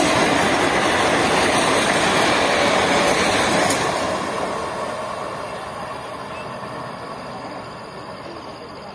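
Indian Railways passenger coaches rushing past at speed, a loud rumble of wheels on rails that fades steadily from about four seconds in as the train draws away.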